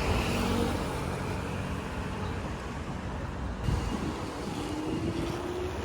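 Street traffic: vehicles going by in a steady rumble. Near the end, one engine's tone rises slowly.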